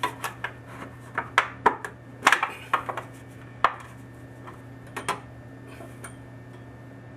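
Thin sheet-metal heat shield clattering and knocking against copper pipe and wood studs as it is slipped into place behind the joint, a dozen or so sharp irregular clicks over the first five seconds, then only a steady low hum.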